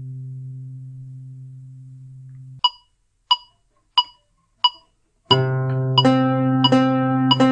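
A zither's held chord dies away and is cut off about two and a half seconds in. Four evenly spaced metronome clicks at 90 beats a minute follow as a count-in, and then the zither starts playing plucked notes in time with them.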